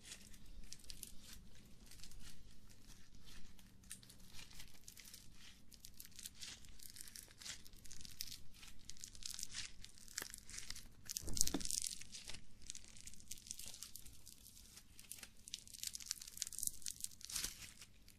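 Close-miked crackling and crinkling from something being handled and squeezed, a dense run of small irregular crackles with one louder crunch about eleven seconds in.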